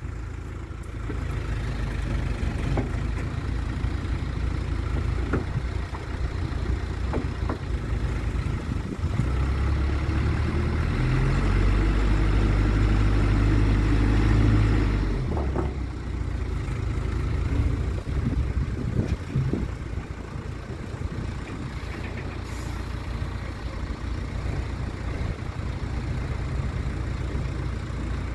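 Diesel engine of a Mecalac 12MX wheeled excavator running steadily. It works harder and louder for several seconds around the middle, then eases back, with a few short knocks along the way.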